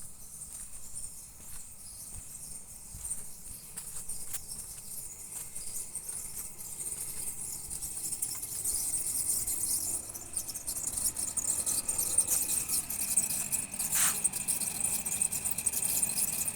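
A vehicle squeaking, with scattered light clicks in the first half and a high, steady squeal building over the second half, with one sharp click near the end; a squeak loud enough to be heard down the whole street.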